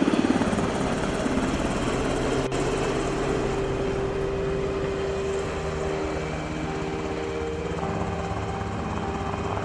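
UH-60 Black Hawk helicopter flying low, its rotor noise steady and continuous with a held hum underneath.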